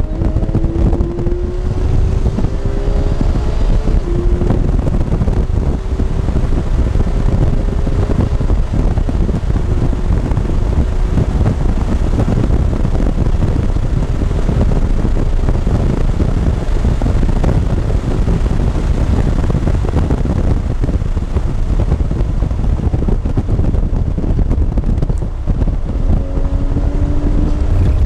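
Porsche 991 GT3's flat-six engine at full throttle heard from inside the cabin, the pitch climbing and stepping down with each upshift, then easing off under braking and climbing again near the end. Heavy wind and road rumble run under the engine throughout.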